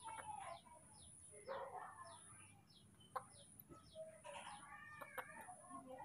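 Faint chickens clucking, with a high short chirp repeating about three times a second and a few light clicks.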